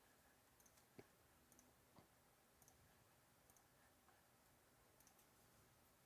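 Near silence: room tone with a few faint clicks, the two clearest about a second apart.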